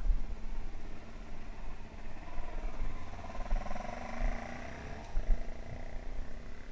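A trail bike engine running, swelling for a couple of seconds in the middle and fading again, over a low rumble and bumps on the microphone.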